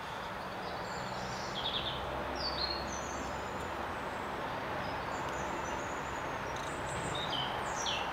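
Small birds giving short, scattered chirps over a steady rumble of outdoor background noise.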